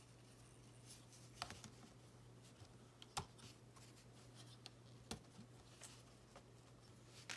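Near silence with a few faint clicks of a plastic Transformers action figure being handled and posed, about a second and a half, three seconds and five seconds in, over a low steady hum.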